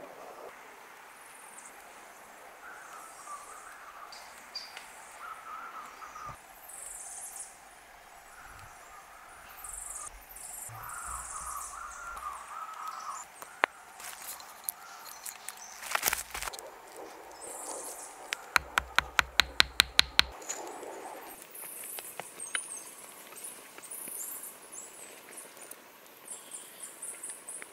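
Forest ambience with small birds chirping and singing. A few sharp knocks come about halfway through, followed by a quick, even run of about ten sharp clicks.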